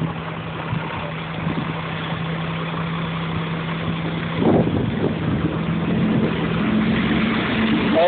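Heavy sanitation truck's diesel engine idling, a steady low hum that grows louder toward the end as it gets close.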